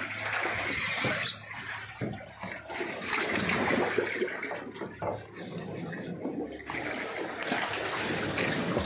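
Water splashing and sloshing unevenly, rising and falling in loudness.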